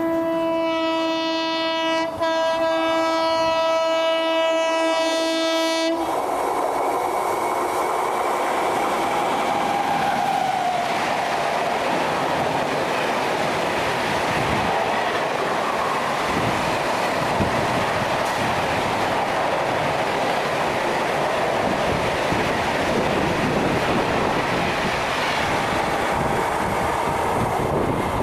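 Indian electric locomotive's horn held as one long chord for about six seconds, cut off abruptly. Then an express train passing a platform at speed: a steady rush of wheels and coaches on the rails with clickety-clack over the joints.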